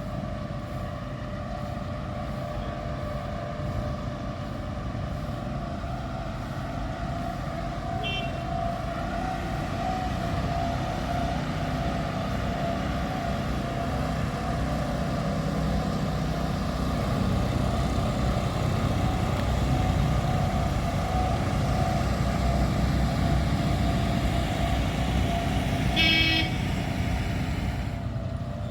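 A boat engine running steadily, with a short horn toot near the end and a fainter one earlier.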